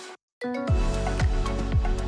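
A brief moment of silence, then background music starts: electronic music with a deep bass and a steady kick-drum beat about twice a second, with crisp hi-hat ticks.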